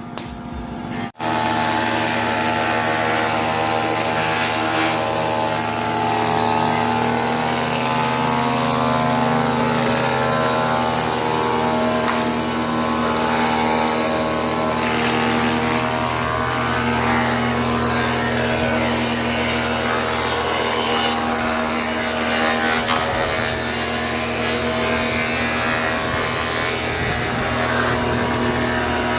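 Single-spindle moulder running steadily, a continuous hum made of several steady tones that begins after a sharp cut about a second in.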